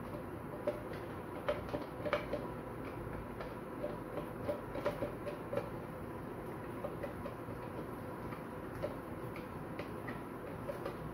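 A frying pan of cabbage cooking on a gas burner: light, scattered pops and clicks over a steady background hum, busiest in the first half.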